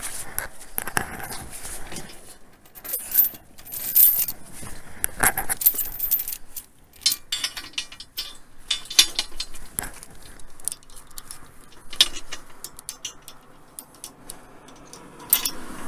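Irregular metallic clinks, rattles and scrapes of a steel wheel boot being handled and fitted against a car's tyre, with a few sharper clanks now and then.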